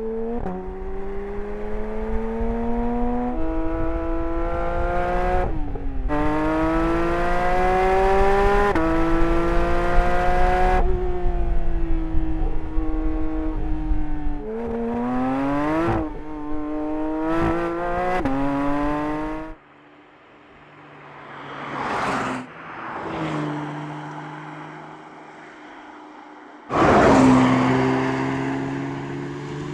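Porsche 992 GT3's naturally aspirated 4.0-litre flat-six accelerating hard through the gears, its exhaust pitch climbing and dropping at each upshift. After a sudden cut it sweeps past twice, then a loud burst near the end fades away.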